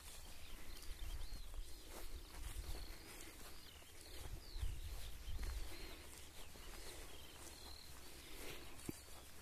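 Birdsong in open grassland: short curling chirps and warbles scattered throughout, over a low wind rumble and the occasional rustle of footsteps through grass.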